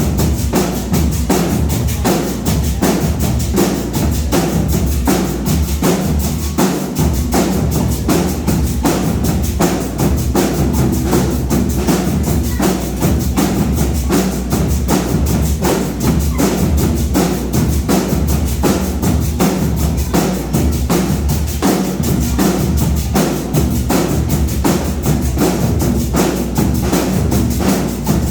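Marching band playing, carried by drums and percussion in a fast, steady rhythm.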